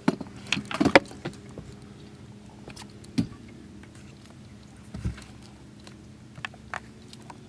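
Scattered clicks and knocks of fishing tackle being handled in a boat, with a cluster near the start, the loudest about a second in, and a dull thump about five seconds in. A steady low hum runs underneath.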